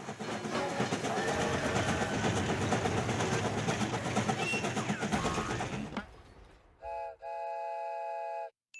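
Cartoon train sound effect: a fast rhythmic chugging for about six seconds, then a short whistle toot and a longer steady whistle chord that cuts off just before the end.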